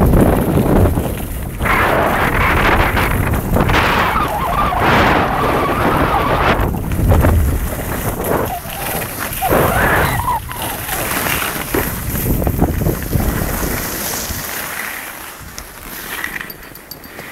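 Wind buffeting the microphone and skis scraping over snow during a downhill ski run, a rough rushing noise with a heavy low rumble that eases off over the last few seconds.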